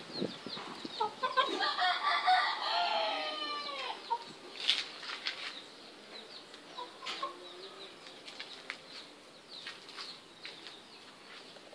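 A rooster crows once, starting about a second in and lasting about two and a half seconds, its call falling in pitch at the end. Scattered short clucks follow.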